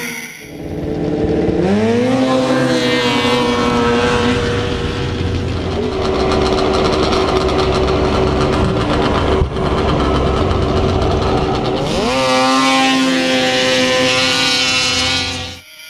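Racing snowmobile engines at full throttle: the engine pitch climbs quickly and then holds steady as the sled accelerates. This happens once about a second and a half in and again about twelve seconds in. The sound cuts off abruptly near the end.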